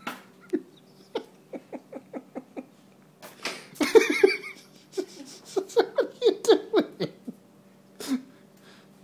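A person laughing in repeated short bursts, with a loud clatter about four seconds in and a single thud near the end, from a Siamese cat knocking a fridge magnet off the refrigerator and jumping down from the freezer drawer.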